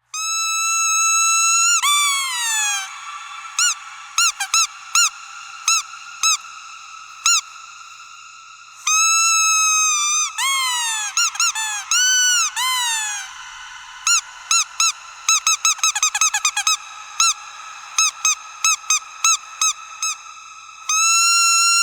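Squeaky dog toy squeezed again and again. There are long held squeaks that fall in pitch at the end, a few seconds in and again near the end, mixed with strings of short squeaks that come fastest about two-thirds of the way through.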